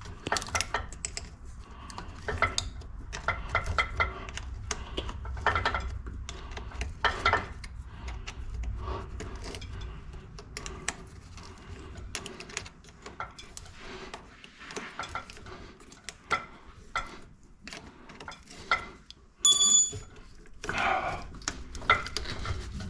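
Wrench and hand tools clinking, knocking and scraping on metal as a rusted fitting is worked on, in irregular strokes, with a brief high metallic ring near the end.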